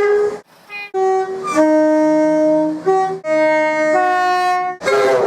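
British train's two-tone horn sounding several times, switching back and forth between a high note and a low note. There is a short break about half a second in, and a burst of louder noise near the end.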